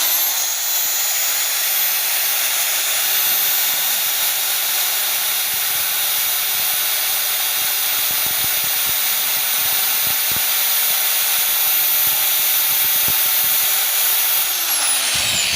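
Electric jackhammer-type drill (rotary hammer) switched on and running at a steady full speed for about fifteen seconds, a loud whirring hiss with a steady hum under it; near the end it is switched off and its pitch falls as the motor winds down.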